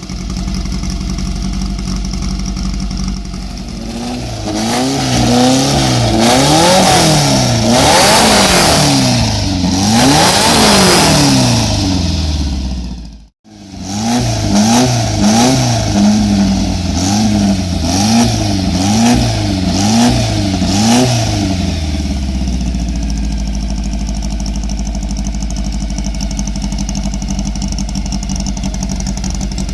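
VW Beetle's air-cooled flat-four engine idling, then revved in a run of throttle blips, each rising and falling in pitch. A sudden brief dropout about halfway through, then another run of quicker blips before it settles back to a steady idle.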